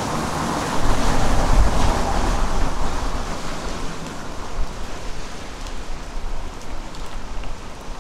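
Steady rain, an even hiss. About a second in a louder low rumble swells up and fades away over the next few seconds.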